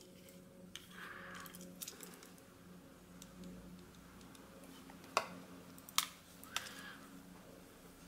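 Quiet handling noise: a few light clicks and taps as a small steel way-wiper carrier plate and a super glue bottle are handled on a metal bench, over a faint steady hum.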